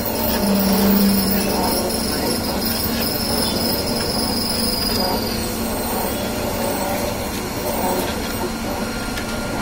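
Semi-automatic cotton wick making machine running steadily as it turns out cut wicks: a continuous mechanical whir over a steady low hum, with a thin high whine that fades out about halfway through.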